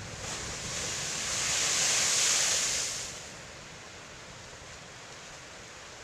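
Ocean wave crashing against black lava-rock sea cliffs. The rush of surf and spray builds over about two seconds and dies away a little after three seconds in, leaving a steady lower wash of surf and wind.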